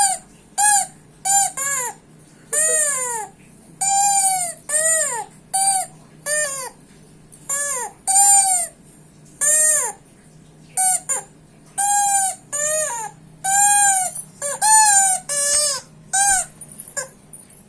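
Rubber squeeze toy squeaking: about seventeen short squeaks at irregular intervals, each rising and then falling in pitch.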